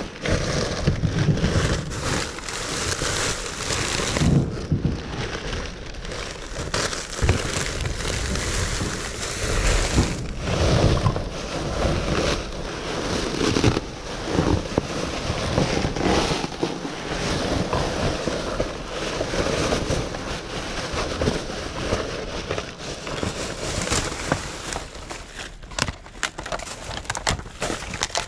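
Plastic trash bags rustling and crinkling as they are grabbed and pulled about, with irregular crackles and knocks throughout.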